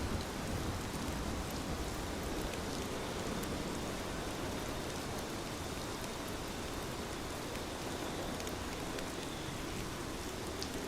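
Heavy rain falling steadily, a continuous hiss with scattered sharp drop ticks.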